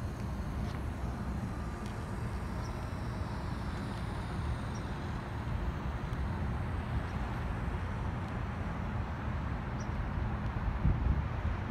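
Steady low rumble of city street traffic outdoors, with a few louder low bumps near the end.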